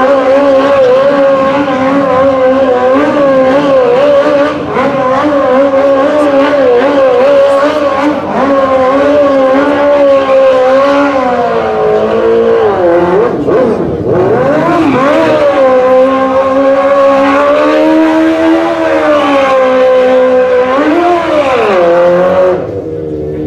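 Sport quad's engine held at high revs, the pitch wavering as the rider spins it on asphalt. The revs dip and climb sharply twice in the second half, then drop off near the end.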